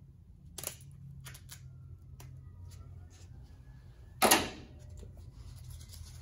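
Handling noises from a folded template being fitted against the truck's body: a few light clicks and rustles, and one loud, short crackle about four seconds in, over a steady low hum.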